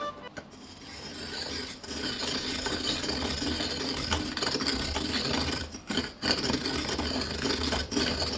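Hand-cranked stainless-steel coconut grater shredding the white flesh of a coconut half: a continuous rasping scrape as the turning serrated head cuts into the meat, with a few brief breaks.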